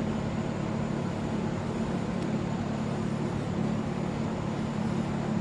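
Steady low mechanical hum with a faint hiss, even throughout.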